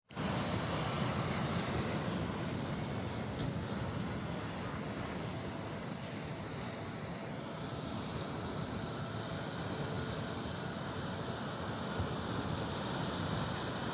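Steady rushing background noise, with a brief louder high hiss in the first second.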